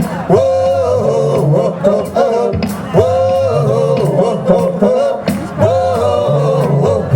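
Live rock and roll band playing, with sustained sung vocal lines over bass and a steady drum beat.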